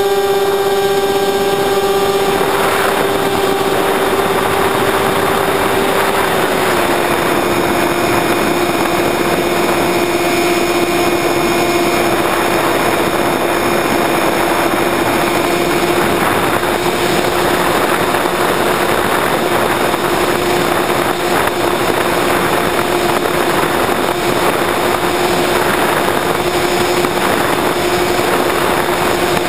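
Electric motor and propeller of an FPV model airplane running at steady high throttle in flight, a constant high drone with wind rushing over the onboard camera. The pitch drops a little about six to seven seconds in as the throttle is eased back during the climb.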